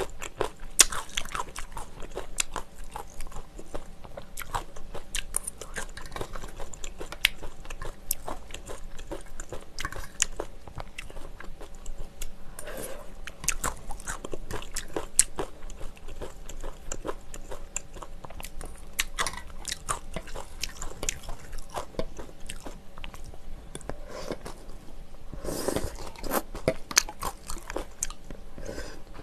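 Close-miked eating: a metal spoon clinking and scraping on a ceramic bowl, with chewing in between. Near the end, as the bowl is raised to the mouth, there is a longer, louder noisy stretch of slurping.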